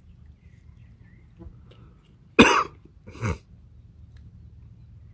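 A man coughs twice, about halfway through: one loud cough, then a shorter, quieter one just after.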